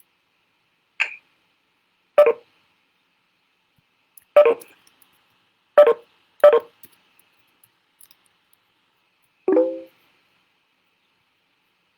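Six short electronic beeps at uneven intervals, the last slightly longer with a couple of steady tones held together, over an otherwise quiet line.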